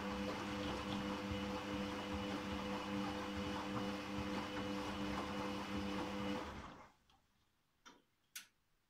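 Candy Grand'O Comfort washing machine turning its drum in a delicates wash at 30°C: a steady motor hum with the rush of tumbling wet laundry, winding down and stopping about seven seconds in. Two short clicks follow near the end.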